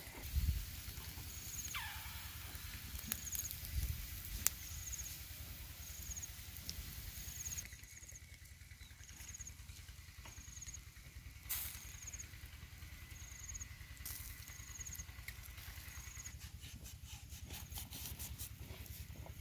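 Outdoor ambience: a short high chirp repeats about once a second, with a few light knocks and clicks scattered through it.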